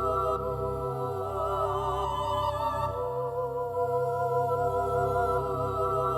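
Background music: slow, sustained melodic tones with a wavering, vibrato-like pitch over a steady low bass.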